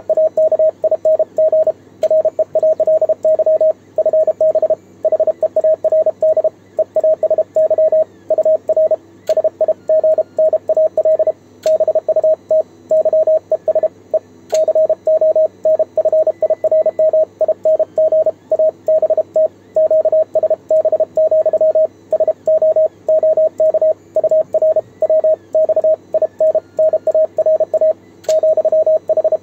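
Morse code (CW) sent on a home-made 3D-printed single-lever paddle: the radio's single steady tone keyed on and off in quick dots and dashes, almost without pause.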